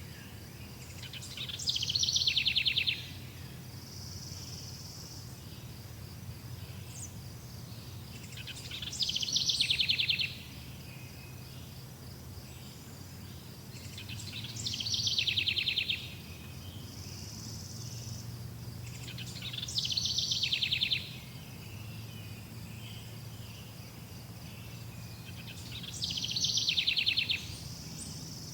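A songbird repeating the same short, rapid trilled phrase five times, about every six seconds, each phrase lasting about a second and a half. Between the phrases, a steady high chirring of insects and a low hum continue.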